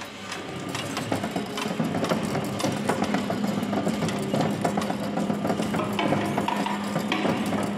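A ball rolling over small rails in a mechanical moving-figure display, making a rapid, continuous knocking and drumming clatter over a steady low hum.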